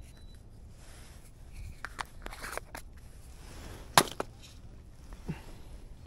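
Small plastic jar of yellow bait balls being opened and handled: scattered light clicks and rustles, with one sharp click about four seconds in.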